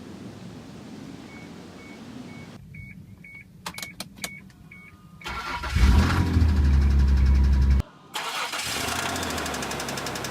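2002 Isuzu Trooper: a repeating warning chime and a few clicks, then the 3.5-litre V6 (6VE1W) cranks and catches with a loud flare. After a break near the end of the flare, the engine runs with a fast, even knock: a rod knock from oil starvation.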